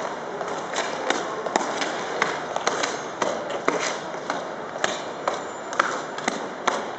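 Heavy cavalry jackboots of a file of Life Guards troopers marching on the parade ground: irregular sharp heel strikes and knocks, ending shortly before the end as the line halts, over a steady crowd murmur.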